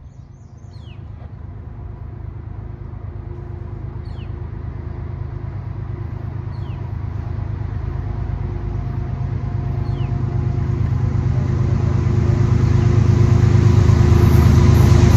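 Diesel locomotives of a seven-unit CN freight train led by a GE ES44DC approach under power, accelerating uphill: a low engine rumble that grows steadily louder throughout. A bird gives a few short falling chirps, about every three seconds.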